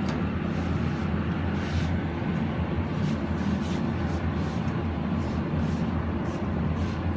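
Steady low hum of kitchen machinery, with faint repeated clicks of a knife cutting through a raw whole chicken on a plastic cutting board.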